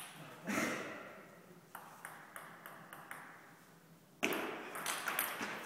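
Table tennis rally: the celluloid ball clicking off the paddles and table in a quick series, about three hits a second, echoing in a sports hall. About four seconds in, a sudden loud burst with several sharp knocks.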